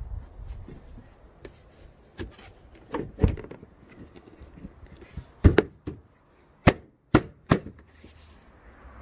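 A string of sharp knocks and clicks from the plastic front bumper of a Vauxhall Astra J as it is handled and pressed at the wheel arch, about eight in all, the loudest a little after three and five seconds in.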